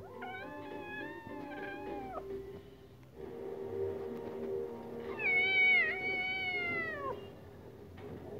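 Tabby kitten giving two long, drawn-out meows, each about two seconds, the second louder than the first.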